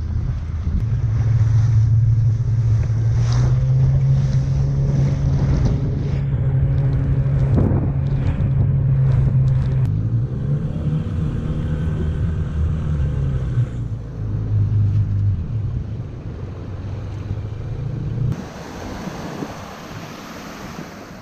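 Outboard motors of Combat Rubber Raiding Craft running at speed over choppy water, with wind on the microphone. Between about ten and fourteen seconds in the engine pitch swells and falls, and near the end the engine gives way to surf washing on a beach.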